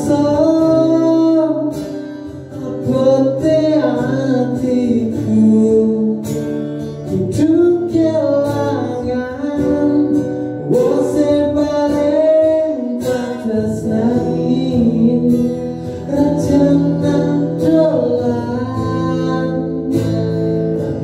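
A man singing a Javanese-language pop ballad, accompanying himself on a strummed acoustic guitar.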